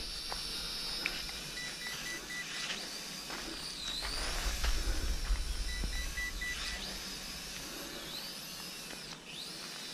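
Small toy quadcopter's motors whining high overhead, the pitch sweeping up and down as it manoeuvres. Twice, a short run of high beeps, about four or five each, which the flyer takes for the signal for doing flips.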